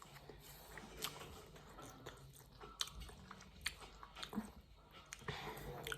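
A person chewing food, with a few sharp crunches and clicks scattered through the chewing.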